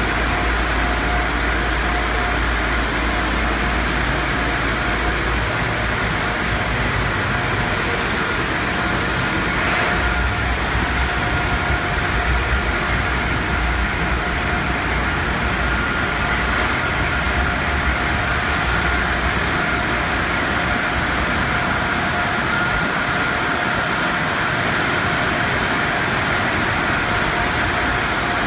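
Water spray and machinery of a Peco tunnel car wash heard from inside the car: a steady rush of spray with a low rumble and a faint steady whine. The hiss softens about twelve seconds in.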